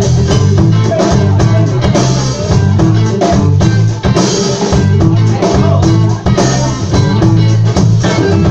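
Live band playing a steady groove on drum kit and guitar, with a heavy low end.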